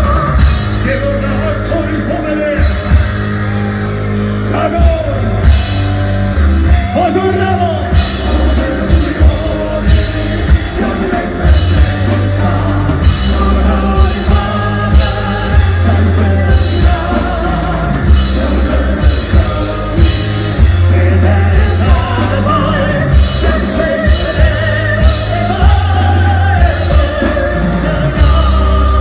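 Metal band playing live: sung vocals with vibrato over heavy bass and regular, punchy drum hits.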